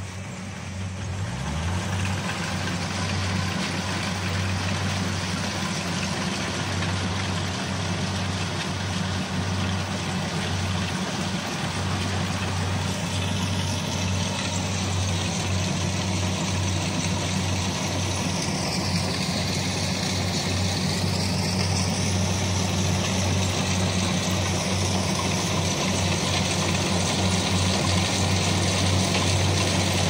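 Kubota DC-70 rice combine harvester's diesel engine running steadily under load as it cuts standing rice, growing slowly louder as the machine comes closer. From about halfway a high whine dips and rises in pitch above the engine hum.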